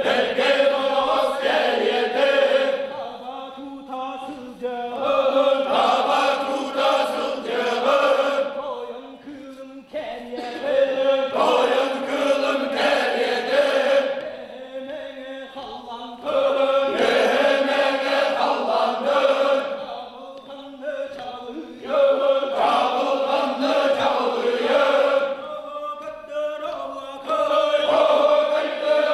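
Group of men chanting an osuokhai, the Sakha (Yakut) circle-dance song, in sung phrases a few seconds long that come back about every five or six seconds with short breaks between.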